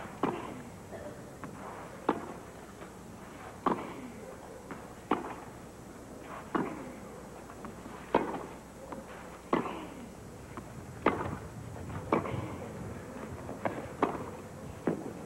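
Tennis ball struck back and forth by two players' rackets in a long baseline rally, with a crisp hit about every second and a half.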